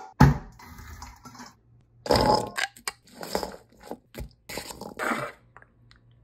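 Chickpea, squash and herb filling being mixed in a stainless steel mixing bowl: a series of short, separate mixing strokes, the loudest about two seconds in, dying away near the end.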